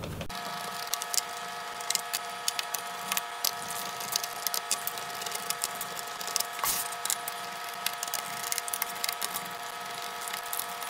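A small Phillips screwdriver turning out the bottom-cover screws of an HP Pavilion 17 laptop, then the loose screws being picked up: scattered light clicks and taps. A steady faint whine of several tones runs underneath.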